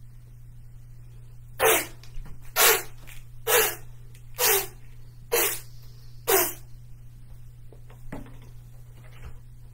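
Six loud, sharp vocal bursts in a row, about one a second, each short and forceful.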